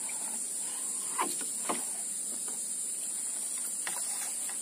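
Steady high-pitched chorus of insects, with two short sharp sounds about a second and a half in.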